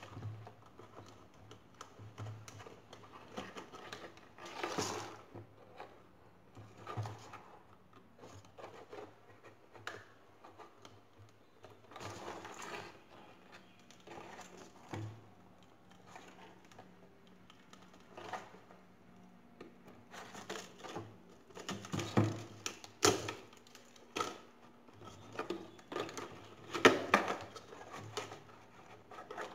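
A hollow plastic bottle being handled while cord is threaded through the holes in its sides. It makes irregular taps, knocks and crinkles, with the loudest knocks a little past two-thirds of the way through and near the end. A faint steady hum sits underneath.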